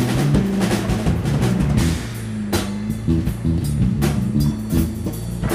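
Background rock music with a drum kit and bass, a steady beat.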